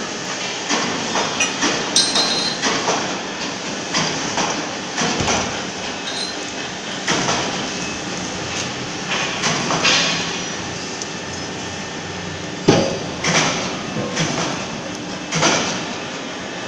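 Steady machinery noise in a factory workshop, broken by irregular metallic clanks and knocks about every second, the sharpest one a little past the middle.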